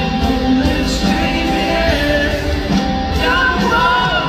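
Music with a singing voice over a band accompaniment.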